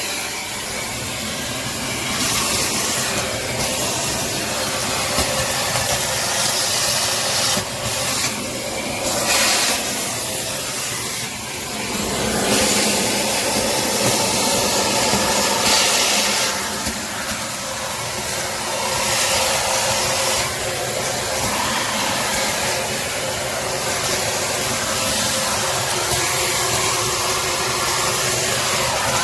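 Nilfisk Multi II 22 L wet/dry vacuum cleaner running: a steady rushing hiss of motor and air whose brightness shifts every few seconds.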